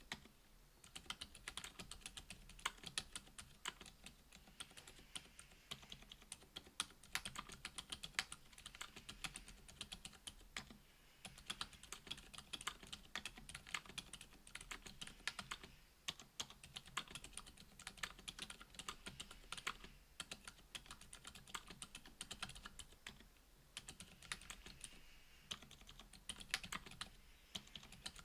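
Typing on a Duck Orion V2.5 mechanical keyboard with lubed Gazzew U4 Boba 62 g silent tactile switches, an FR-4 plate and GMK keycaps: quiet, muffled keystrokes in quick runs, with brief pauses between bursts.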